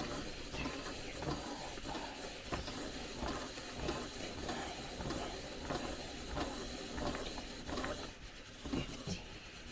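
3D-printed plastic bulk film loader being hand-cranked, its winding mechanism clicking and ratcheting continuously as 35mm film is wound from the bulk roll into a cassette.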